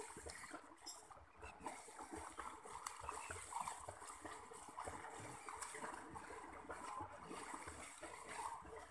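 Pond water splashing as water buffaloes and a man wade through it.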